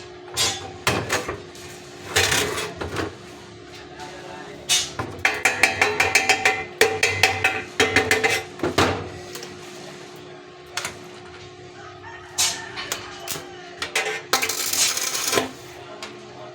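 Metal parts clinking and knocking, many sharp strikes in irregular clusters, over a steady hum; a short burst of hiss about two seconds before the end.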